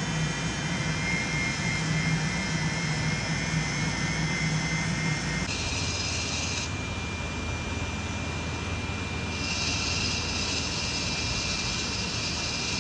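A jewelry workshop tool running steadily: a continuous rushing noise with a low hum and a high, even whine. The whine shifts pitch about five and a half seconds in, and a brighter hiss comes in near the end.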